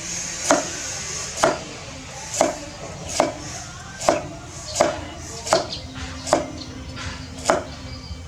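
A knife chopping on a cutting board: nine sharp, evenly spaced strokes, a little under one a second, with faint small knocks between them.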